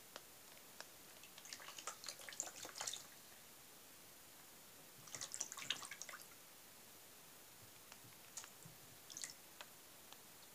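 Faint splashing and dripping of water in a small plastic tub as a cat's paw dips in after crucian carp. It comes in two quick flurries, about one and a half and five seconds in, with a few light drips near the end.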